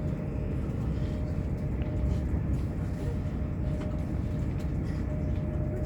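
Running noise inside a Class 221 Super Voyager diesel-electric unit at speed: a steady low rumble from the wheels and the underfloor diesel engine, with a faint steady whine over it.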